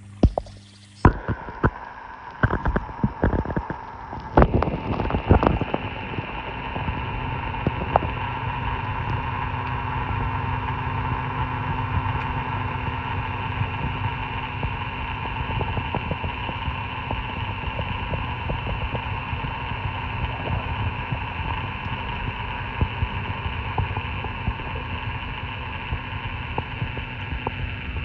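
A microphone going under pond water: a few seconds of bumps and splashes as it is submerged, then a steady underwater hum with several steady tones from the pond's running pumps.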